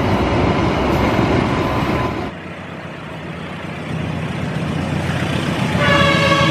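A freight train of container wagons rolling past, its wheels rumbling on the rail. Then a diesel locomotive approaching with its engine growing louder, and its multi-tone horn starting near the end and held.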